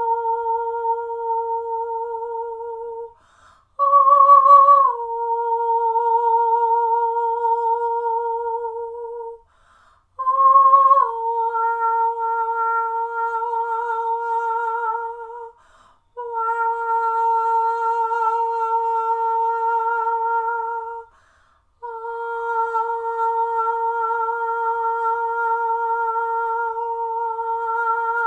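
A woman singing long wordless notes on an open vowel as sound-healing toning, in phrases of about five or six seconds with short breaths between. Each note is held with a steady vibrato, and the early phrases open on a higher note before stepping down to the held one.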